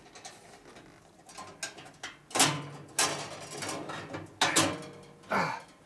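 Steel bandsaw blade of a 1960s Boice-Crane 14-inch bandsaw scraping and clanking against the saw's table slot and blade guides as it is worked by hand into place. There are a few sharp rattles, the first about two and a half seconds in.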